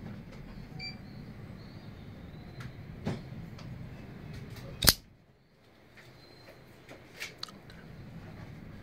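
Assisted-opening folding knife (SOG Quake XL) snapping its blade open and locking, with one sharp metallic click about five seconds in. Lighter clicks of the knife being handled come before and after it.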